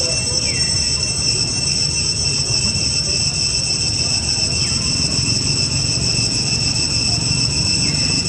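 Steady high-pitched insect chorus, several insects droning at different pitches without a break, over a low rumble. Three short falling calls come through it: about half a second in, midway, and near the end.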